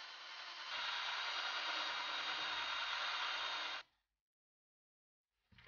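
Small cordless drill running under load as it bores and drives screws into the 3D-printed plastic mount of a micro servo. The whir steps up louder and fuller about a second in and cuts off sharply; a faint short knock follows near the end.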